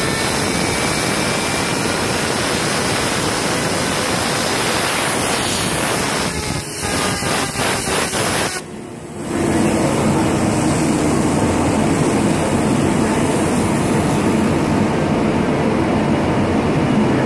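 Compressed-air blow gun blasting a loud, steady hiss of air onto a fidget spinner to drive it at very high speed. About six seconds in the blast stutters in short pulses and briefly drops away, then comes back at full strength.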